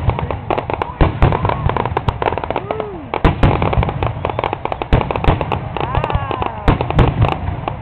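Fireworks going off in a rapid, irregular string of sharp pops and bangs, with people's voices in the background.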